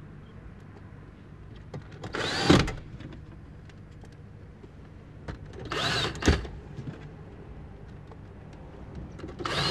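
Cordless drill-driver running screws in: three short whirring bursts a few seconds apart, each rising in pitch and then falling as it stops.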